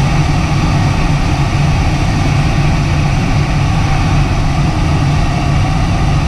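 Steady deep rush of air heard inside a DG-800 sailplane's cockpit in fast ridge-soaring flight, loud and even throughout.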